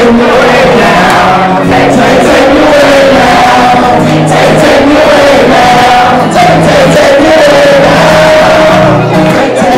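A song performed live in a hall, loud and unbroken, with many voices singing held lines together over a steady bass part, as a crowd singing along with the performer.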